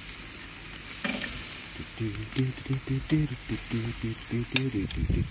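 Boneless chicken thighs sizzling on the hot grate of a charcoal kettle grill, with a few sharp clicks of metal tongs as pieces are lifted off. From about two seconds in, a low, rapidly pulsing sound grows louder over the sizzle.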